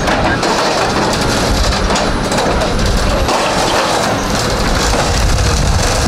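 Heavy logging machines (a wheeled skidder and a tracked limbing machine) running with a steady diesel rumble and a dense crackle of small snaps throughout.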